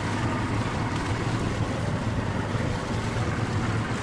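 Steady low engine drone from the ice-breaking amphibious vehicle and the boat working through the broken lake ice, with wind noise on the microphone.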